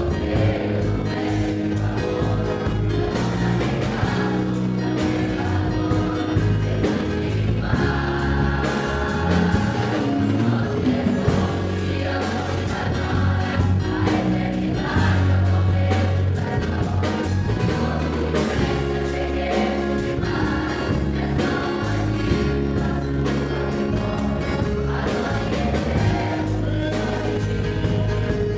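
A choir singing a gospel hymn with instrumental accompaniment, with a steady bass line.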